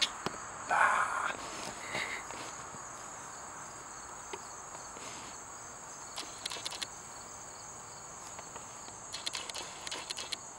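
Steady high-pitched chorus of insects in the trees, with a brief louder burst of noise about a second in and a few soft scuffs later on.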